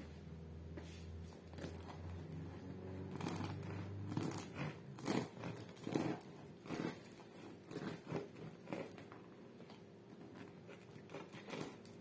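Bread knife sawing down through a crusty, seed-coated sourdough loaf: a run of crackling crunches, one with each stroke, loudest midway through the cut and smaller as the blade nears the base.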